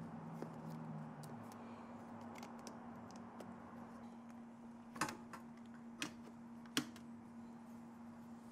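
Faint clicking and light metallic taps of a hand tool loosening the carburetor boot clamps on a Honda CRF230F, with three sharper clicks in the second half, over a faint steady hum.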